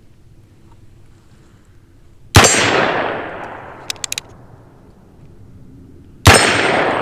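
Cimarron Bisley single-action .45 Colt revolver firing twice, about four seconds apart. Each shot is a sharp report followed by a long echoing decay. Between the shots comes a quick run of four small clicks, as the hammer is cocked.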